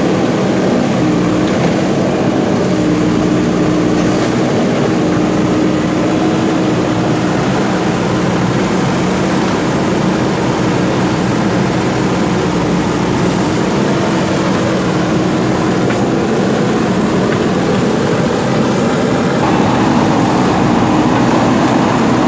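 Diesel engine of a JCB 3DX backhoe loader running steadily under work, its pitch shifting slightly now and then.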